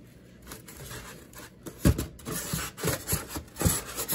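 Hands handling a cardboard box and its foam packing insert: light rustling, then from about two seconds in a series of knocks with rubbing and scraping between them.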